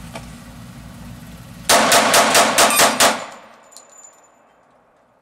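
Seven quick shots from a Llama Minimax .45 ACP compact 1911 pistol, starting a little under two seconds in and spanning about a second and a half. The pistol cycles every round without a malfunction.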